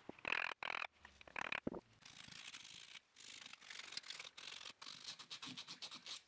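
Hand chisel paring end grain at the foot of a segmented wood vase: about three squeaky scraping cuts in the first two seconds. Then sandpaper rubbed by hand over the wood in rasping back-and-forth strokes that get quicker near the end.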